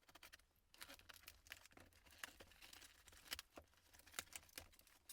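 Faint rustling, scraping and small clicks of a postal package being handled and opened by hand.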